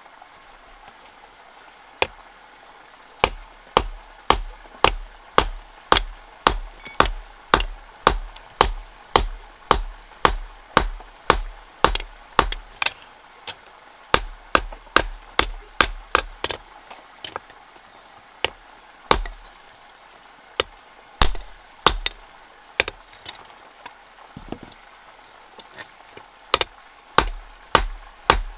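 Hammer blows struck in a steady rhythm of about two a second, with a pause of scattered single strikes in the middle before the steady hammering starts again.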